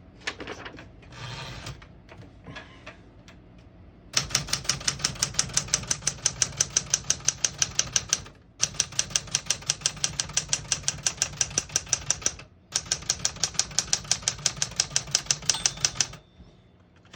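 Smith-Corona Galaxie Twelve manual portable typewriter being typed on: a few scattered light clicks and rattles, then a fast, even run of keystrikes, about five a second, broken by two short pauses, stopping about a second before the end.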